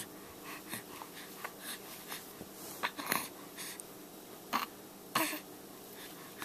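A baby's short breathy grunts and huffs while she strains to pull her feet up to her mouth, a few separate bursts with the last ones loudest, one with a brief bit of voice in it.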